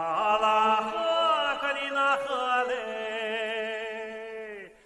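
A man singing the wordless Hezhe-style call 'he-he-lei he-he-ni-na … na-he-lei-gei-gen' in long, drawn-out phrases. The last note is held with a slow waver and breaks off just before the end.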